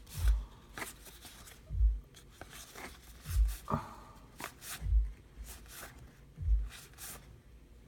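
Baseball trading cards being handled and flipped through one at a time: a soft low thump about every second and a half, with short papery slides and rustles between.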